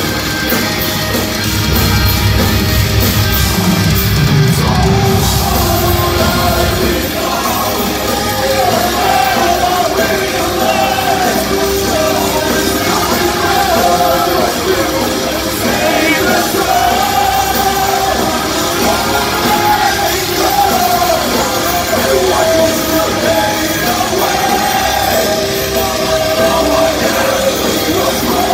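Heavy metal band playing live in a large hall, with singing over full band music. The low end is heavy for about the first seven seconds, then a wavering melodic vocal line carries on over the band.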